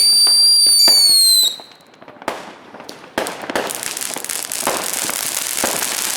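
New Year's Eve fireworks: a high-pitched whistling firework whose pitch sinks slightly before it cuts off abruptly about a second and a half in, then scattered sharp bangs and, from about three seconds in, dense continuous crackling of firecrackers.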